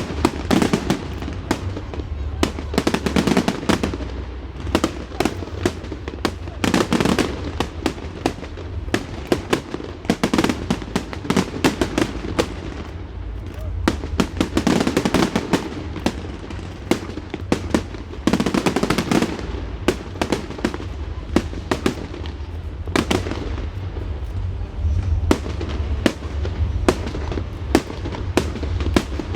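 Fireworks display: a dense, continuous run of bangs and crackling reports at irregular intervals, over a steady low rumble.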